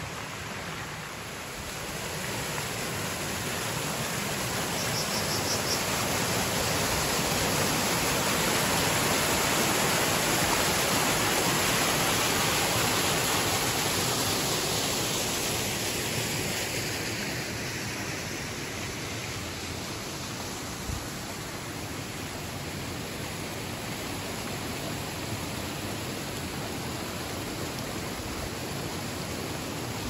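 Small mountain stream rushing over rocks: a steady rush of water that swells over the first ten seconds or so and eases back after about fifteen seconds.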